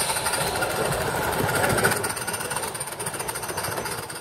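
Garden-scale live steam locomotive running past close by with a rapid, even beat of exhaust and wheels on the rails, loudest for the first two seconds, then fading as its coaches follow.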